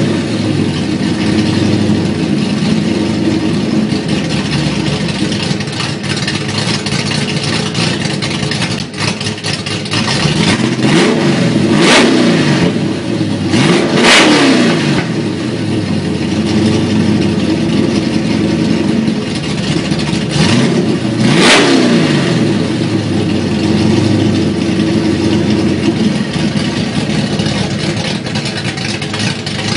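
Saleen S281 Mustang's V8 idling through its exhaust and being revved in quick blips while parked. The pitch climbs and falls back several times, the sharpest revs about 12, 14 and 21 seconds in.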